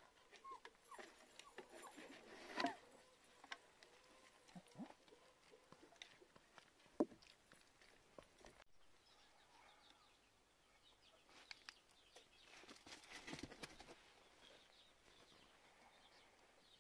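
Faint, scattered clicks and scrapes over near silence: a puppy mouthing and licking the edge of a plastic sled, with one sharper click about seven seconds in.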